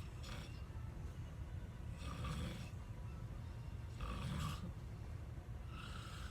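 A person snoring, with a short rasping snore about every two seconds over a steady low background hum.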